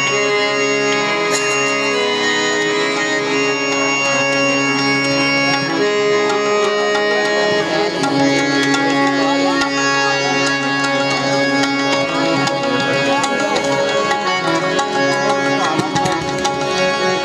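Qawwali instrumental passage: harmonium playing a melody over held reed tones, with tabla drumming that grows busier about halfway through.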